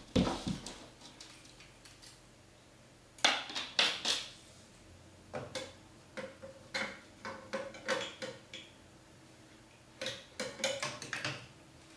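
Plastic marble-run track pieces being fitted and snapped onto a plastic-tube framework: clusters of clicks, knocks and rattles, about three seconds in, again from about five to nine seconds, and once more around ten to eleven seconds.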